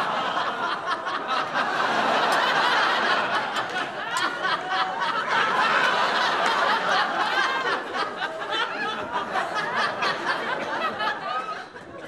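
A studio audience laughing, long and unbroken, easing off near the end.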